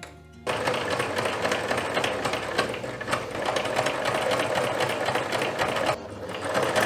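Electric sewing machine running, stitching a buttonhole. It starts about half a second in, stops briefly about six seconds in, then runs on.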